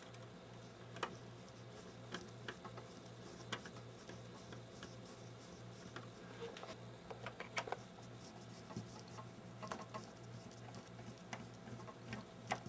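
Faint, irregular clicks and light taps of a hand screwdriver and the monitor's plastic and metal parts being handled while screws are put back in, over a low steady hum.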